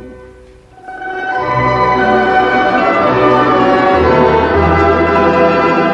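Instrumental interlude between verses, played by an orchestra of Russian folk instruments. The sound dips briefly under a second in, then the full orchestra comes in loudly and holds a sustained passage.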